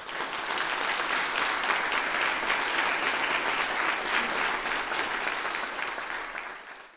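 Audience applauding, many hands clapping steadily, fading out near the end.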